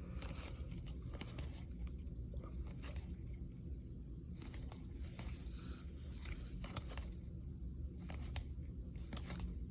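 Faint rustling, light scraping and small clicks of baseball trading cards being handled and flipped through.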